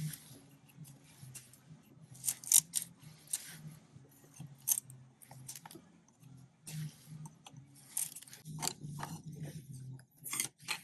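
Irregular scraping and crunching strokes of a hand tool picking old caulking out of wooden deck seams, with a steady low hum underneath.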